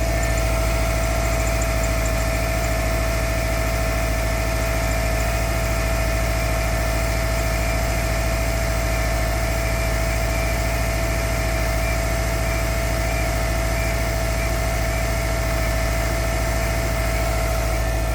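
Subaru EJ25 2.5-litre flat-four idling steadily soon after a cold start at −16 °C, with a rapid rhythmic knock from the engine and a steady high whine over it.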